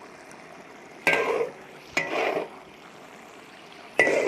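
Sauce simmering in a wok with three short strokes of a metal spatula against the pan, each starting with a sharp click, about one, two and four seconds in, as starch slurry is stirred in to thicken the sauce.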